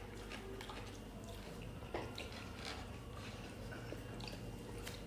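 Quiet mealtime eating sounds: soft chewing with a few faint clicks of utensils or dishes, over a steady low hum.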